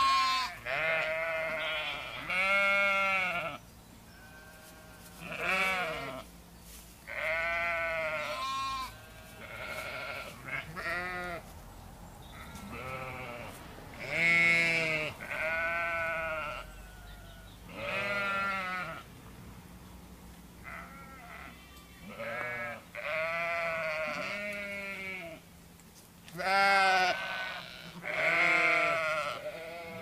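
Sheep and lambs bleating over and over, a wavering call every second or two, some high and some lower in pitch.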